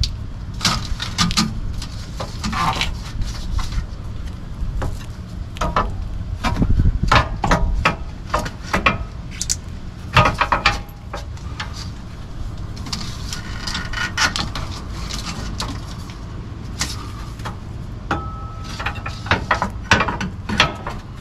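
A steel rear coil spring with an air bag inside it knocking, clicking and scraping against the suspension as it is worked back into its seat by hand: a run of irregular, sharp knocks with a few short metallic rings.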